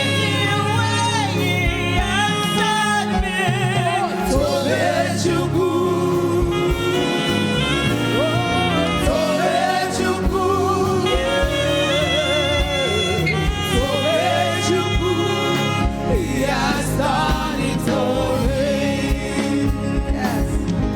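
Gospel worship song: singing with vibrato over a steady instrumental backing.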